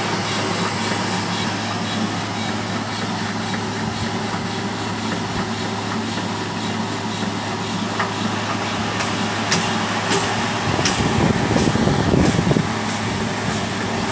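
Biomass-fuelled single-cylinder engine with a large flywheel running steadily and belt-driving a small generator, giving a constant low hum. From about nine seconds in, a sharp tick repeats about twice a second, with a louder rumble for a moment near the end.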